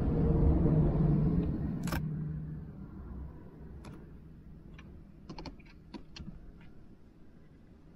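A passing vehicle's low rumble swells and fades over the first three seconds, with a sharp click near two seconds in. Then comes a cluster of small plastic clicks and taps as an action camera in its plastic housing is pressed onto an adhesive windshield mount.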